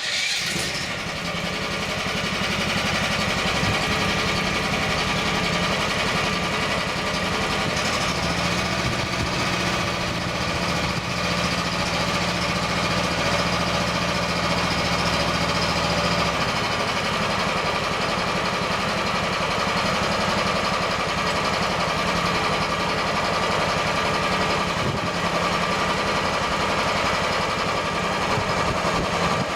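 Homemade hydraulic mower attachment on a mini excavator on its first test run: a hydraulic pump run as a motor spins the mower blade through a belt, kicking in suddenly and running steadily with the excavator's engine. The low drone eases a little about halfway through.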